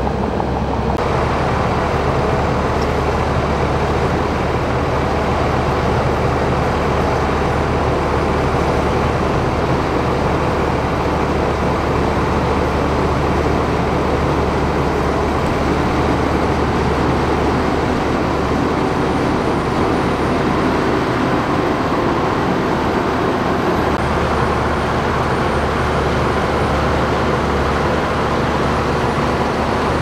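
Shantui crawler bulldozer's diesel engine running steadily under load as the dozer pushes a pile of wet earth.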